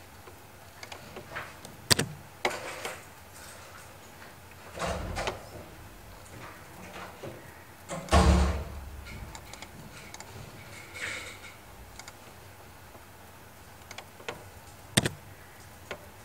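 Scattered clicks and knocks from a computer mouse and keyboard being worked at a desk, with a heavier low thump about eight seconds in and a sharp click near the end.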